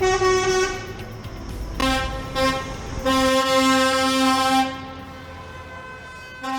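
Coach horns honking in protest. One high blast comes at the start, a few short toots at a lower pitch follow about two seconds in, then one long blast of about a second and a half.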